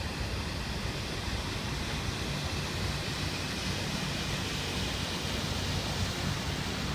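Passenger cruise boat passing below: a steady low engine hum under the rushing hiss of its churning wake.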